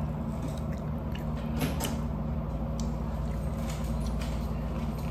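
Biting and chewing a breaded chicken wing: short wet clicks and smacks of eating, a pair of sharper ones about one and a half to two seconds in, over a steady low hum.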